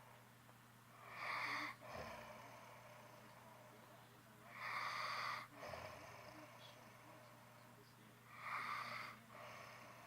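A sleeper snoring: three rasping in-breaths about every three and a half seconds, each followed by a softer out-breath.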